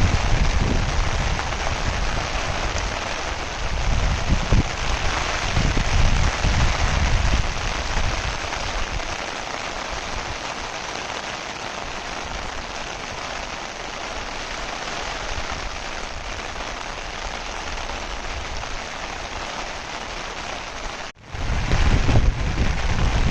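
Steady rain falling, with uneven low gusts of wind on the microphone in the first several seconds. About 21 seconds in the sound cuts out for an instant, then returns with stronger wind rumble.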